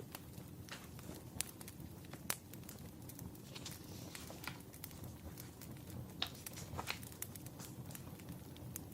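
Wood fire crackling: a low steady rumble with irregular sharp pops and snaps, a few louder than the rest.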